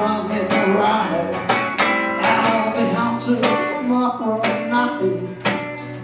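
Solo acoustic guitar strummed and picked in a blues style, with sharp accented strokes between held notes.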